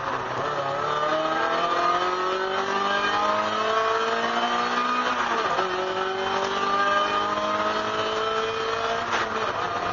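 Race-prepared 1999 Mazda MX-5 Miata's four-cylinder engine, heard from inside the cabin, accelerating hard out of a corner: the pitch climbs steadily, drops with an upshift about five seconds in, climbs again, and drops with a second upshift near the end.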